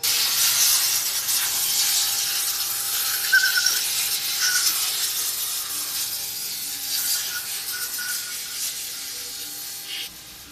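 CNC router cutting: a loud, steady hiss of the cut that starts suddenly, gradually gets quieter, and carries a few short squeaks.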